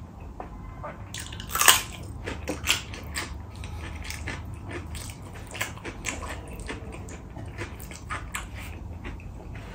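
Close-miked eating: wet chewing, mouth clicks and smacks from a mouthful of rice and chicken curry, with soft squishing of fingers mixing rice on a steel plate. The chewing comes as many irregular small crackles, with a sharper crunch about a second and a half in.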